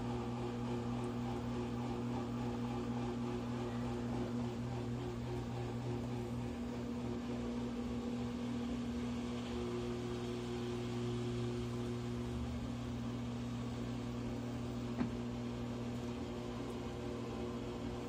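Top-load washing machine running with its drum turning under a heavy wet blanket: a steady motor hum with a few fixed tones, and one short click about 15 seconds in.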